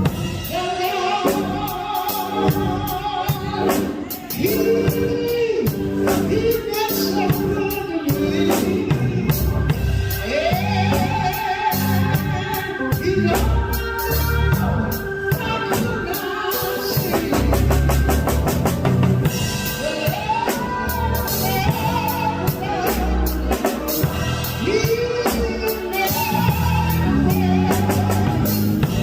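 Gospel song: singing voices over a band with a drum kit keeping a steady beat.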